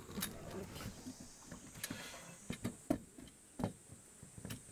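Scattered light clicks and knocks as hammock-stand parts are handled and fitted together, over quiet outdoor background.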